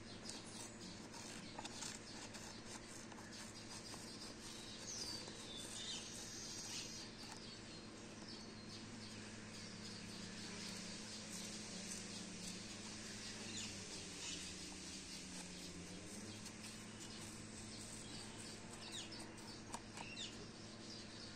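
Birds chirping faintly in short calls, over a steady low hum, with small soft snips of scissors cutting paper.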